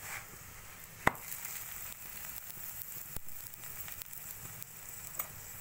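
Aloo paratha sizzling steadily as it fries on a hot griddle pan, with a sharp click about a second in and a fainter one around three seconds.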